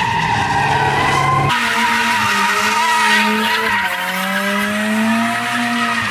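A car drifting in donuts: tyres squealing steadily while the engine revs high, its pitch rising and falling, with an abrupt change in the sound about a second and a half in.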